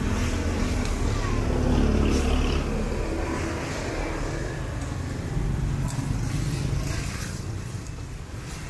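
Pig heads and meat grilling on a charcoal grill as metal tongs turn them, under a low rumble of street traffic that swells about two seconds in and then eases.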